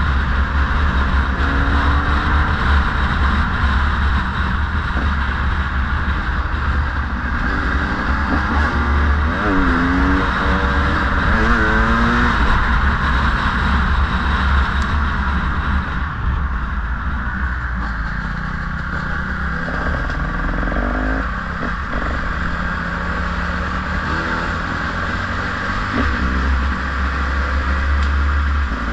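Small motorcycle riding at speed, its engine running under a heavy rush of wind on the microphone. The engine pitch rises and falls a few times about a third of the way in and again around two-thirds through.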